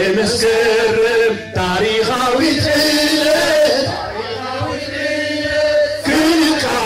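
Men singing a chant-like song in held phrases, with short breaks between phrases about a second and a half in and again near the end.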